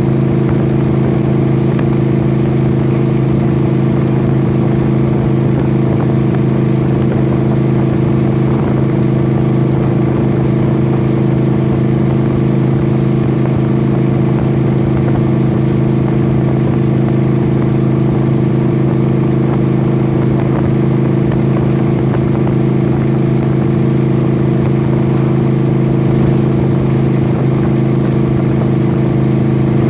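Vehicle cruising at a steady speed: a constant engine and road drone with a steady low hum that does not change.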